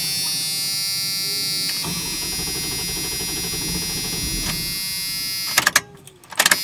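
A truck's starter motor whirs steadily as it cranks the 5.9 L V8, which does not catch. The cranking stops about five and a half seconds in with a few sharp clicks, then starts again right at the end.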